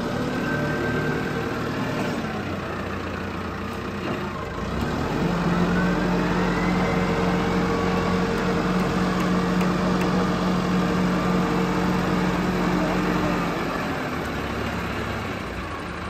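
Diesel engine of a LEHMAN ZL926P wheel loader running while its grapple boom lifts a load of wood. About five seconds in it revs up and holds the higher speed, dropping back to a lower run a couple of seconds before the end.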